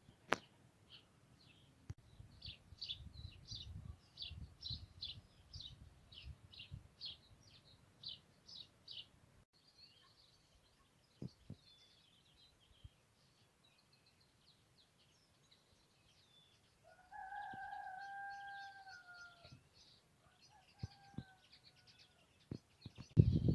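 A small bird chirps repeatedly at about two calls a second, with other birds twittering faintly. Later a rooster crows once in the distance, a held call of about two and a half seconds that falls away at the end, followed by a short second note.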